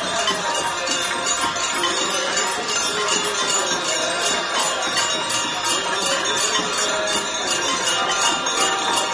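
Brass hand bells ringing rapidly and without a break during the Ganga aarti, mixed with devotional music.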